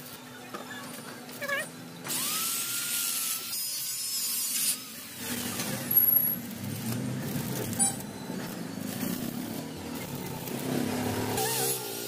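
Power tools working steel square tube, heard in several short segments that change abruptly. One segment is a high hissing grind with a tone rising as the tool speeds up. A sharp knock comes about six seconds in.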